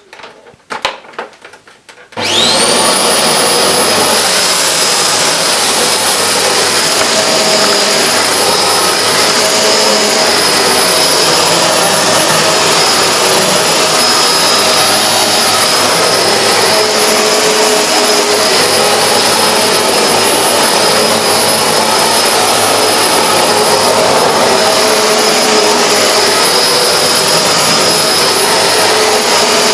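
Hoover Globe bagless vacuum cleaner switched on about two seconds in after a few light clicks, its motor spinning up quickly to a steady, loud, high-pitched whine over a rushing of air.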